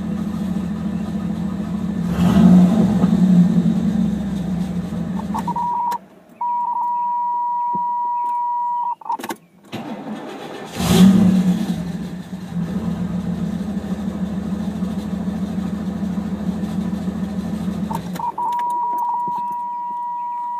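Pontiac Trans Am's tuned-port-injected V8 idling with a brief rev about two seconds in, then shut off about six seconds in, after which a steady high warning tone sounds. The engine fires quickly about eleven seconds in, idles, and is shut off again near eighteen seconds, and the warning tone comes back.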